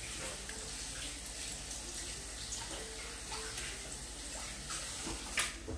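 Salmon croquettes and hush puppies frying in hot oil in a skillet, a steady sizzle. A sharp click about five seconds in.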